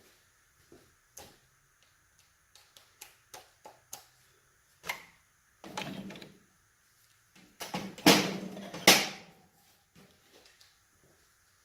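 Hand ratchet and socket working on the connecting-rod cap bolts of an LS V8 engine: scattered metallic clicks and knocks, with louder bursts of metal clatter about six seconds in and again around eight to nine seconds in.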